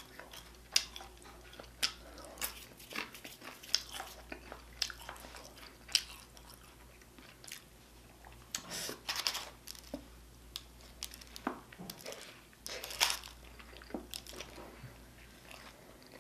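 A person chewing and biting food up close to the microphone: soft, irregular wet clicks and crunches, a few louder bites around the middle.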